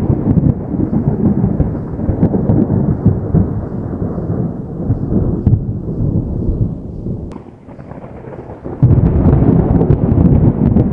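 Distant thunder rumbling in long low rolls. The rumble fades away over about seven seconds, and a new loud roll breaks in suddenly near the end.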